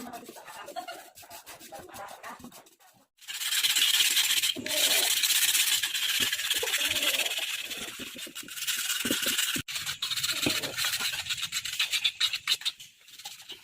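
Steady rasping scrape of hand work on a metal part, such as filing or sanding. It starts about three seconds in after a brief pause and runs on with small breaks.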